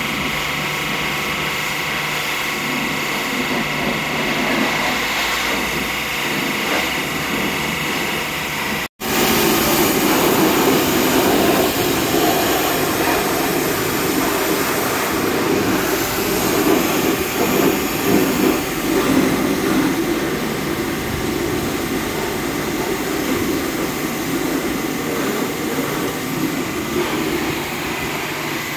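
High-pressure car-wash washer running, its pump motor a steady hum under the hiss of the water jet spraying a vehicle. The sound cuts out for an instant about nine seconds in, then carries on a little louder.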